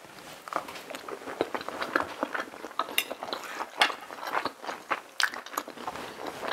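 A man chewing a mouthful of breaded, pan-fried pork cutlet: many short, irregular crunches and clicks.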